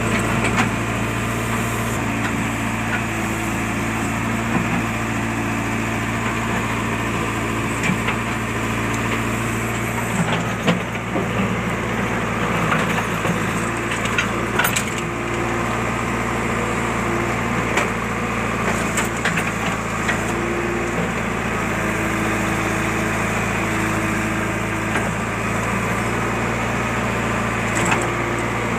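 JCB backhoe loader's diesel engine running steadily while it digs, with a shifting hydraulic tone and scattered sharp knocks and clicks.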